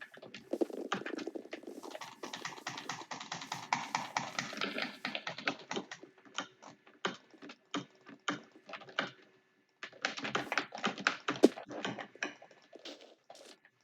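Typing on a computer keyboard: rapid runs of key clicks in bursts, slowing to scattered keystrokes, with a brief pause just before ten seconds in and then another fast burst.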